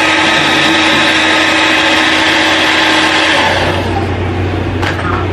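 Hand-held hair dryer blowing steadily, switched off about three and a half seconds in.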